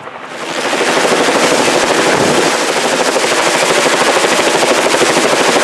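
Helicopter hovering low overhead, its rotor making a loud, rapid, even chop that swells in over the first second and then holds steady, while a sling load is hooked to its long line.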